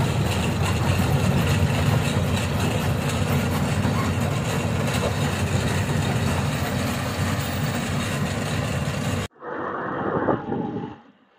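Loaded lorry moving slowly over a broken road, heard from inside the cab: a steady low engine drone mixed with a dense rattle from the cab and body. About nine seconds in the sound cuts off abruptly, and a quieter, muffled stretch of engine noise follows and dies away near the end.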